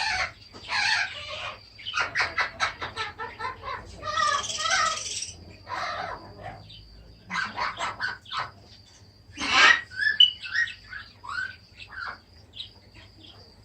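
A flock of pet budgerigars and cockatiels chattering, chirping and squawking in irregular bursts.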